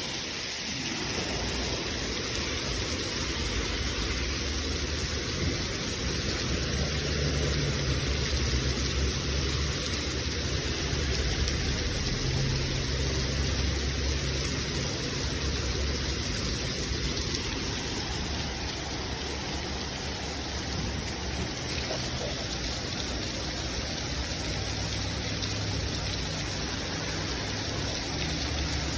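Heavy rain falling steadily, a dense even hiss, with a low rumble underneath that comes and goes.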